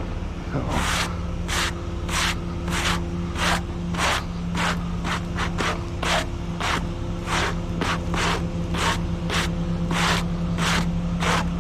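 A stiff broom sweeping debris off a trailer deck in quick, regular strokes, just under two a second, over the steady hum of an idling engine.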